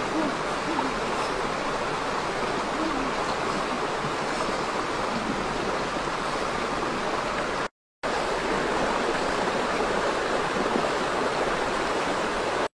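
Steady rush of flowing stream water over a rocky bed, cutting out for a moment about two-thirds of the way through.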